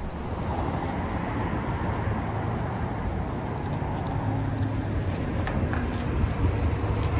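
Steady low rumble of road traffic and vehicle engines, with a deep engine hum that grows a little stronger about four seconds in.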